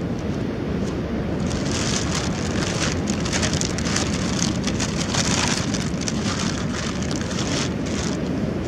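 Foil-lined plastic bag crinkling and rustling as it is handled, from about a second and a half in to near the end, over a steady low rumble of wind on the microphone.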